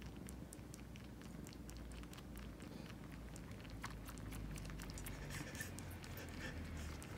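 Bengal cats purring faintly as a low, steady rumble, with soft licking sounds from one cat grooming itself, clearer in the second half.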